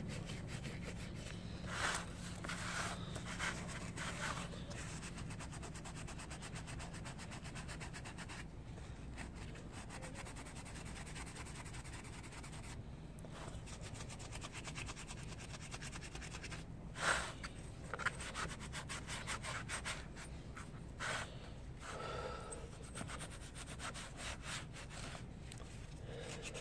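Scotch-Brite pad scrubbing carbon buildup off a gasoline-soaked GY6 scooter cylinder head: faint, uneven rubbing and scratching, with a few louder scrapes.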